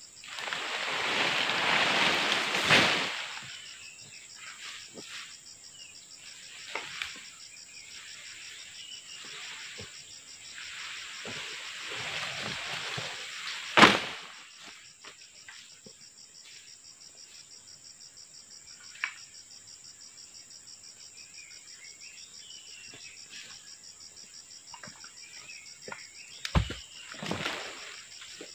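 Insects drone steadily at a high pitch with a fast, even pulse. Twice, a long rustling sweep builds up and ends in a sharp knock, about three seconds in and again about fourteen seconds in. A couple more knocks come near the end.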